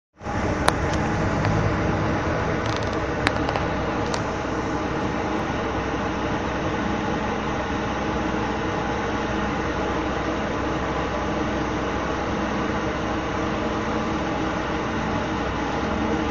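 Inside the cabin of a Scania N250UD double-decker bus: the five-cylinder diesel engine and road noise run steadily, with a few sharp rattles or clicks in the first few seconds.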